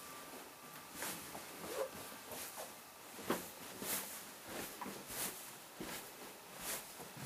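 Footsteps going down a flight of stairs, about one step every three-quarters of a second, with some handling rustle.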